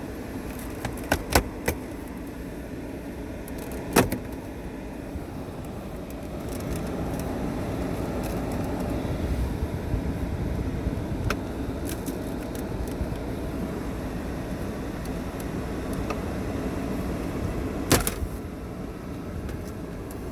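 Plastic dashboard vent trim on a Cadillac SRX being worked loose by hand, with sharp clicks and snaps as its retaining clips let go, the loudest about four seconds in and near the end. A steady low hum runs underneath, louder from about six seconds in.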